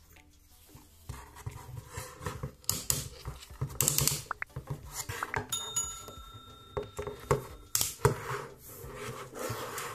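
Hard plastic of a portable camping fan being handled: scattered clicks, knocks and scrapes as its fold-out hook handle is swung and the fan body is turned over, starting about a second in.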